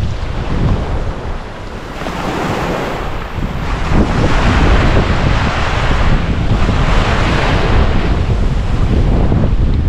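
Ocean surf washing onto the beach, with wind buffeting the microphone as a low rumble. The surf dips briefly, then swells and stays louder from about four seconds in.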